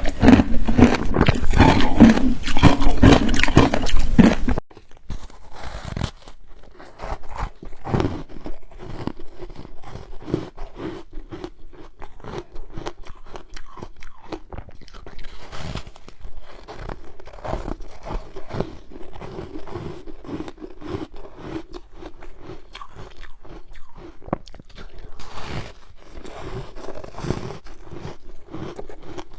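Ice being bitten and chewed close to the microphone, a dense, irregular run of crunches. It is loud at first, then drops abruptly about four and a half seconds in to quieter crunching with a faint steady hum behind it.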